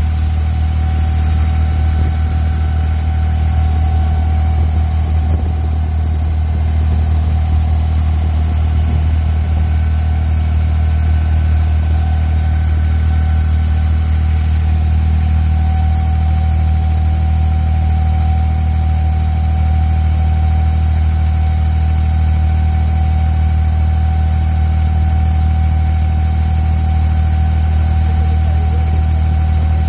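Boat engine running steadily at an even speed: a loud, deep drone with a faint steady whine above it.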